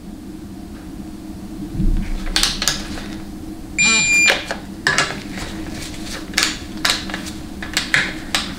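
Torque wrench tightening a 700R4 transmission's oil pan bolts: a run of sharp ratchet clicks, with one short electronic beep about four seconds in, the signal of a digital torque wrench reaching its set torque.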